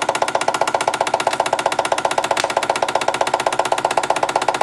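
Bing vintage toy steam engine running on live steam at speed, driving a belt-and-line-shaft toy workshop, with a rapid, even beat and one sharper click about halfway.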